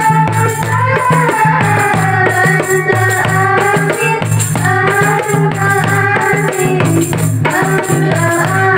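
Marawis ensemble performing: women singing a melody over hand drums and jingling percussion.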